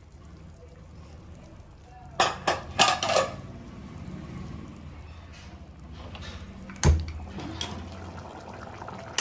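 Metal clinks and knocks of a pressure cooker lid being unlocked and lifted off once the pressure is released: a cluster of sharp knocks about two to three seconds in, and a heavier thump about seven seconds in.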